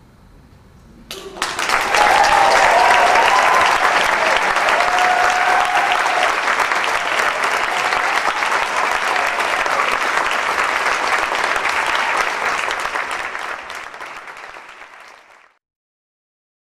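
Audience applause breaks out suddenly about a second in, with a few voices calling out in the first few seconds. It thins out and stops shortly before the end.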